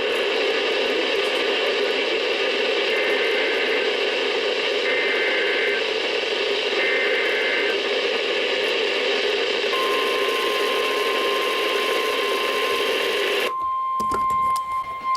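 NOAA weather radio alert received through heavy static: three short bursts of the SAME digital header warble come one after another, then the long steady warning alert tone begins about two-thirds of the way in. Near the end the static drops out suddenly and the alert tone carries on clean.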